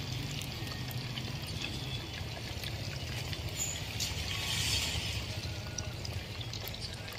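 Duck pieces deep-frying in a large pot of hot oil: steady sizzling and bubbling with small crackles over a low hum, the sizzle swelling louder about four to five seconds in.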